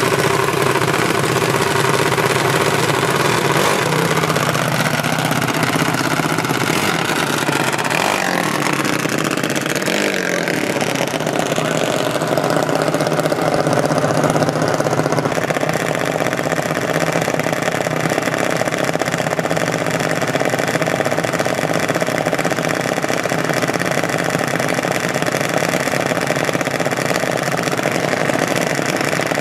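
Small motor-vehicle engines running continuously. Gliding pitch changes from revving come a few seconds in, then a steady drone.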